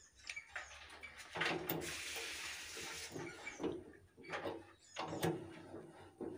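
Steel box spanner with a tommy bar being fitted onto and turned on the 19 mm nuts of a power tiller's rotary bearing housing: sharp metal clicks and clinks, with a longer scraping noise about one and a half seconds in.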